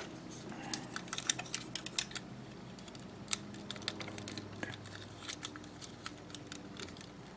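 Scattered light clicks and taps of hard plastic parts of an HG Zowart Heavy Gunpla kit being handled and adjusted in the hands, over a faint steady hum.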